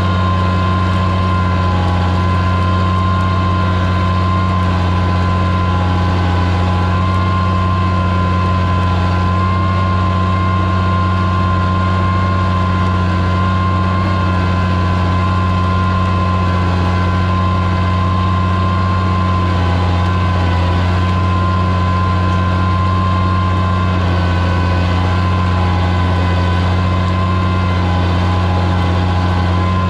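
Oliver 77 tractor's six-cylinder engine running steadily under load as it pulls a plow through the ground, with a steady high whine above the deep engine note.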